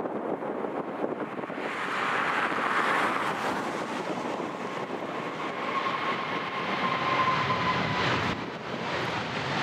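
Boeing 777 jet engines as the airliner goes by: a steady roar that swells about two seconds in, with a thin whine that sinks slowly in pitch.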